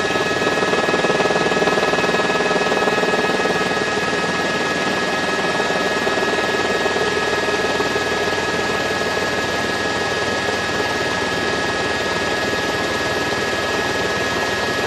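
Steady helicopter noise, a constant high engine whine over a rushing hum, unchanging throughout.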